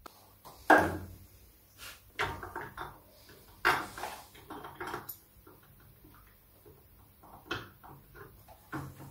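Scattered light clunks and metallic clicks of hand work on the engine as the piston is taken off its con rod and turned round, with the mechanic's jacket brushing close to the microphone. The loudest knock comes a little under four seconds in.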